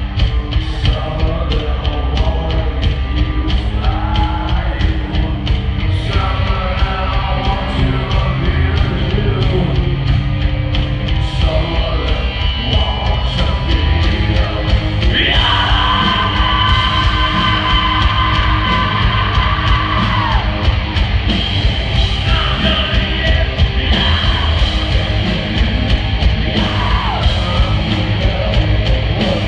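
Live heavy rock band playing loud, with drums, bass and distorted guitar under a singer's yelled vocals. About halfway through the singer holds one long note that falls away at its end. Heard through a phone microphone in the crowd.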